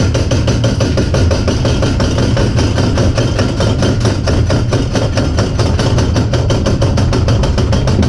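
Wacky Worm family roller coaster train clattering along its steel track, a rapid, even run of knocks over a deep, steady rumble.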